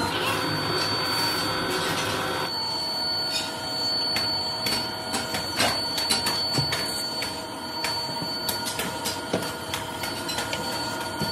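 Workshop machinery running steadily with a constant high whine, overlaid with scattered clicks and knocks; the mix changes abruptly about two and a half seconds in.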